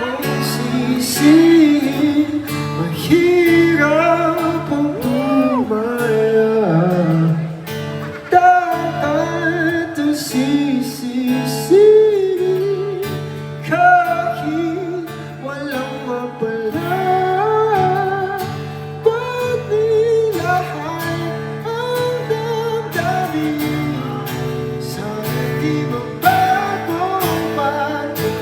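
A live band playing and singing a song at a soundcheck: a sung melody over strummed acoustic guitar and a held bass note.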